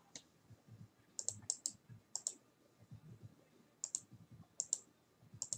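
Computer mouse and keyboard clicks: short, sharp, fairly faint clicks, many in quick pairs, scattered irregularly, with faint soft thumps between them.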